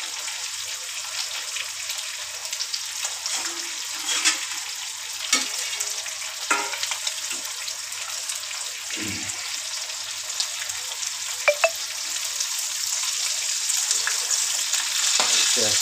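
Marinated fish pieces shallow-frying in oil in a non-stick pan: a steady sizzle with scattered pops and crackles, growing a little louder near the end.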